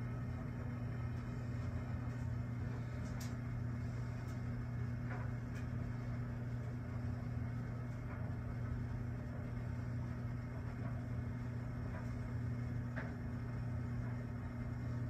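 Steady low hum over an even background noise, with a few faint ticks.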